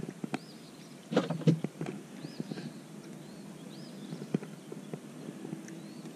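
Scattered light knocks and clicks around a small boat as a long jig pole and its line are worked by hand, the loudest cluster about a second in. A short, high, arched chirp, likely a bird, repeats every second or two in the background.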